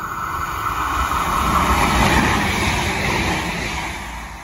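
Irish Rail 22000 Class diesel railcar running past along the platform: a rumble of wheels and engine with a slightly falling tone. It grows to its loudest about two seconds in, then eases off.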